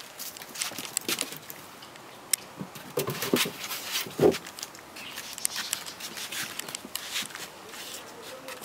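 Clatter of a Löwchen puppy tussling with a wooden push broom on deck boards: the broom head scraping and knocking on the decking, with quick scuffs and clicks throughout and a louder thump about four seconds in.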